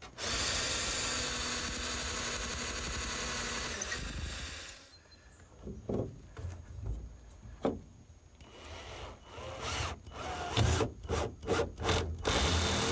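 Power drill driving screws into wooden framing: a steady run of about five seconds, then scattered knocks of wood being handled and set in place, then the drill running again near the end.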